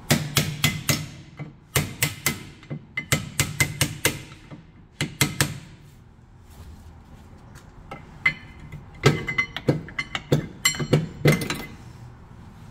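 Hammer striking a flat pry tool held against a front brake pad to drive it out of the caliper bracket: runs of quick metal-on-metal strikes with a ringing note, a lull midway, then another run of strikes.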